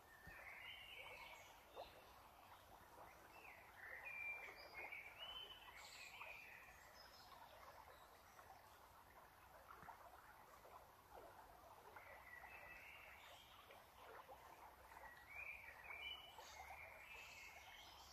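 Faint bird chirps and twitters in four short clusters over a low outdoor hiss.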